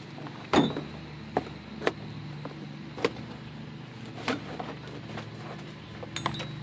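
Handling sounds while unpacking steel shop-press parts: a few sharp knocks and clinks of metal pieces and a cardboard box being handled on a carpeted truck bed, the loudest about half a second in. A steady low hum runs underneath.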